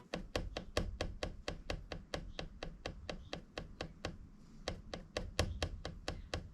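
A fast, even run of sharp clicks, about six a second, over a faint low rumble. This is the clacking abnormal noise that a T32 Nissan X-Trail makes on a cold day.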